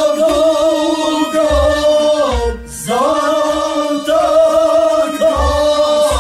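A male voice singing long, wavering held notes over instrumental accompaniment, with low thumps underneath. The voice breaks off briefly about two and a half seconds in and then comes back.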